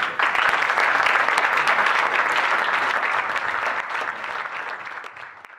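Audience applauding in a hall, steady clapping that fades away near the end.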